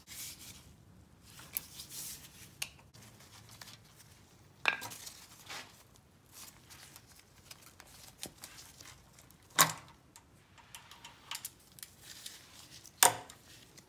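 Hand ratchet and socket undoing the cam sprocket bolts on an iron-block LS engine: scattered light ratchet clicks and metal clinks. Three sharper metallic clanks come about five, ten and thirteen seconds in.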